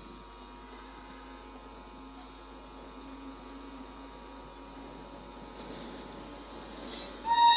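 A steady low hum as an Indian Railways WAP-7 electric locomotive and its train approach along the track. Just past seven seconds in, the locomotive's horn sounds a sudden, loud, steady-pitched blast.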